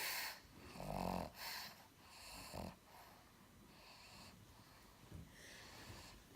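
A pug snoring in its sleep: a few loud snores, one with a low buzzing rattle, in the first three seconds, then softer, hissing breaths.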